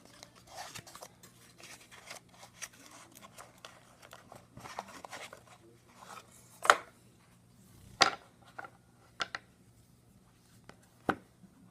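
A cardboard trading-card box being opened by hand: light rustling and scraping of cardboard, with several louder clicks and snaps, the loudest about seven seconds in.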